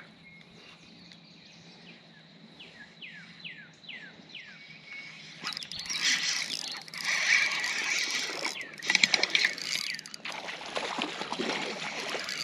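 A bird gives a run of short falling chirps. About halfway through, a louder splashing and sloshing water noise takes over.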